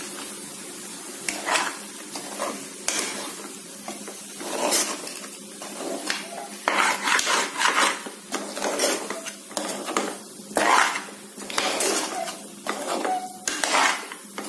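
Spatula scraping and clattering against the inside of a metal pressure cooker as raw chicken pieces are stirred through fried masala, in irregular strokes that grow busier about halfway through.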